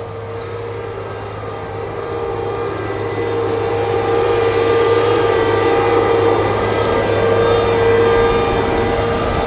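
Blaw-Knox PF-4410 asphalt paver's Cummins 5.9-litre diesel engine running steadily with a constant tone, growing louder a few seconds in.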